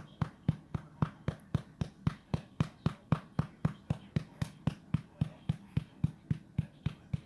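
A hand patting a baby's back to bring up a burp: a steady run of soft thumps, a little under four a second.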